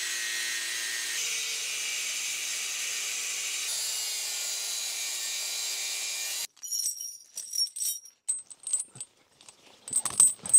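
A power tool cuts steadily through a link of a steel tire chain. It stops suddenly about six and a half seconds in, and then loose chain links clink and jingle.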